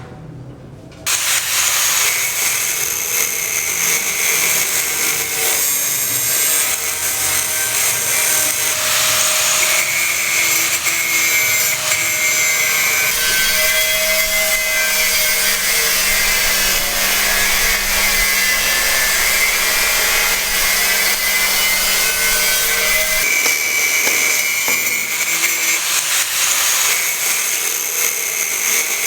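A power tool running continuously, starting abruptly about a second in and holding a steady, high-pitched cutting or grinding noise.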